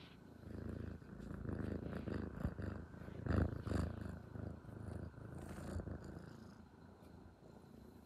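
Black cat purring close to the microphone while being stroked, a steady low throb that swells about three and a half seconds in and fades toward the end.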